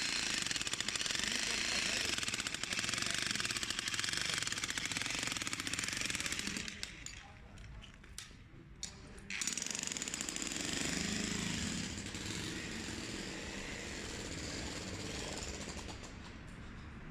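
Jackhammer hammering in a rapid, steady rhythm. It drops away for a couple of seconds about seven seconds in, then starts again somewhat quieter.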